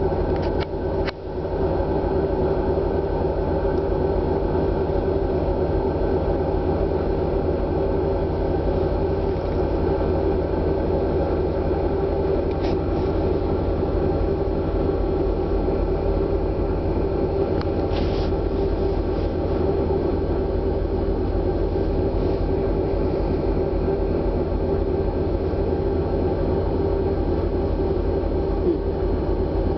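Steady low hum of a ferry's engines and machinery, heard inside a passenger cabin: a constant drone with several steady tones.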